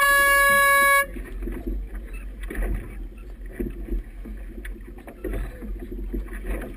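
A single horn blast of about a second, starting with a short upward swoop, sounded from the race committee boat to mark a sailboat finishing the race. After it there is wind noise on the microphone and choppy water.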